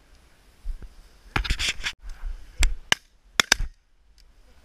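Shotguns firing a ragged series of sharp shots in quick succession from several hunters, a cluster of cracks about a second and a half in followed by four more single shots over the next two seconds.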